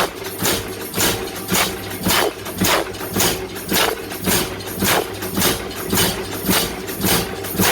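Hammer blows on hot wrought iron at an even pace of about two a second, each a sharp ringing strike, over a steady hum.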